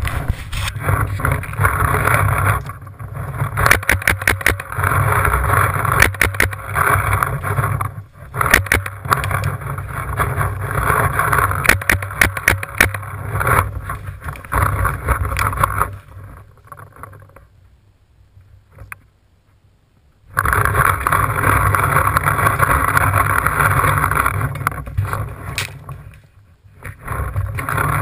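Rumbling, rustling handling noise on a GoPro action camera as the player moves through the woods. Several quick runs of sharp clicks are heard, and the noise drops to a brief lull about two-thirds of the way through before starting up again.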